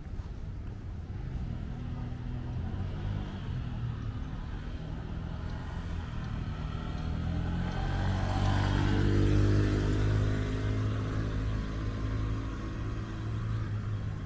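A motor vehicle's engine and tyres passing close by on the street, growing louder to a peak about nine seconds in, then fading.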